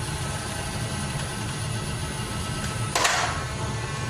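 Electric flywheel motors of an Adventure Force Enforcer belt-fed foam-dart blaster whirring steadily, with one sharp burst about three seconds in. The blaster is malfunctioning: its revs drop when the trigger is held and it fires darts only one at a time.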